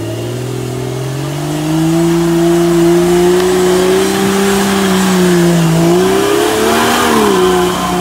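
Off-road 4x4's engine revving hard under load as it drives forward over an obstacle: the revs climb over the first two seconds and hold high, sag briefly near the end and pick up again.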